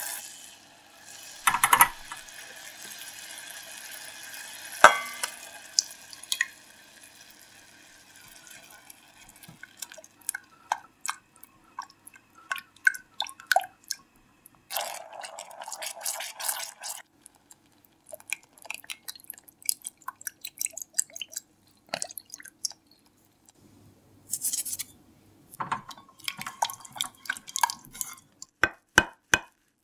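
Balsamic vinegar and tomato sauce bubbling and popping with many small sharp pops as it reduces in a stainless steel saucepan, while a spatula stirs and scrapes the pan. There are two louder knocks near the start.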